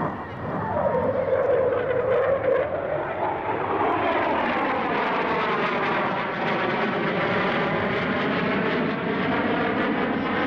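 Jet noise from an RF-4E Phantom's two J79 turbojets as it flies past, loud and steady. A whine slides down in pitch over the first three seconds, then the roar takes on a sweeping, phasing tone as the jet draws nearer.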